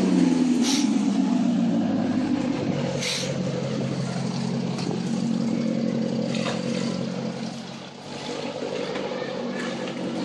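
Maserati Quattroporte's V8 exhaust as the car rolls slowly at low revs, the note falling as the revs drop in the first couple of seconds, then holding a steady deep burble.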